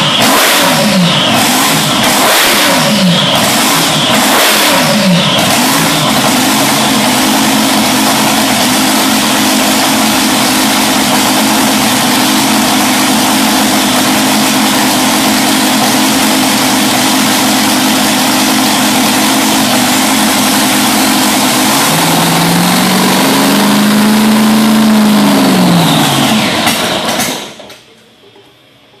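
A supercharged boat engine running: the throttle is blipped several times in the first five seconds, then it idles steadily. It is revved once more near the end and then shuts off.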